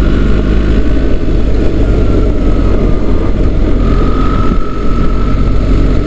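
BMW R 1300 GS boxer-twin engine running at a steady cruise in fifth gear on a wet road, with wind and tyre noise and a thin steady whine above the engine note.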